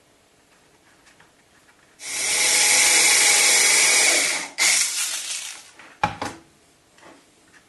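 Small mains-powered hobby mini drill running steadily for about two and a half seconds, stopping suddenly, then running again briefly and winding down. A single sharp knock follows as the drill is set back into its cradle on the power supply.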